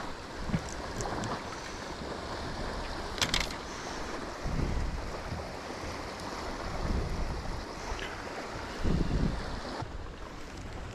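Wind gusting on the microphone over a steady outdoor hiss, with one sharp click about three seconds in.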